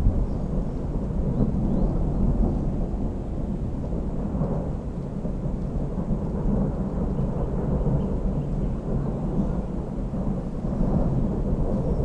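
Thunder rumbling low and long without a break, swelling about four seconds in and again near the end.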